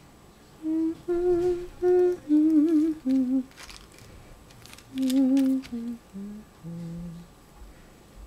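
A person humming a slow tune in held notes that step up and down, with a short break midway, then sinking lower toward the end.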